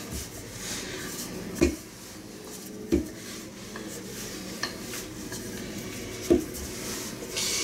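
Wooden rolling pin rolling out stiff noodle dough on a floured countertop: a steady rolling rumble broken by three sharp knocks, about a second and a half, three seconds and six seconds in.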